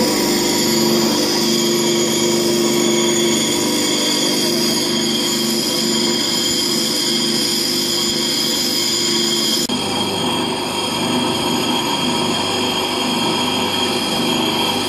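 Bench grinder running with a steady whine while a steel lathe tool bit is held against the wheel and ground into a square-thread cutting tool, a harsh grinding hiss over the motor. The sound shifts abruptly about ten seconds in, and the grinder keeps running.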